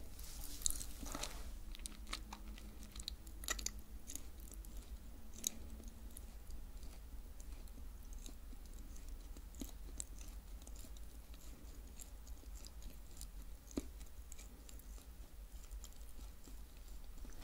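Close-miked chewing of sweet snacks, with a few crisp crunches in the first six seconds and then soft, quiet chewing.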